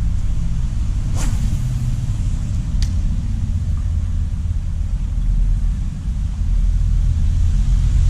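Continuous low rumble, with the quick swish of a spinning rod being cast about a second in and a sharp click a couple of seconds later.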